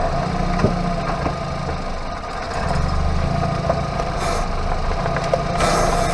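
Hyundai Avante MD front wheel turning on the road, heard from inside the wheel well: a steady low rumble of tyre and road with a steady hum over it. The hum is taken to be a worn front hub bearing.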